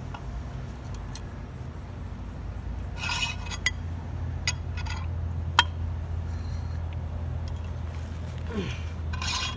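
Mustang hand-wound swaging tool being wound in to press a swage fitting onto a jetter hose: a few sharp metallic clicks and short scrapes in the middle and near the end, over a steady low hum.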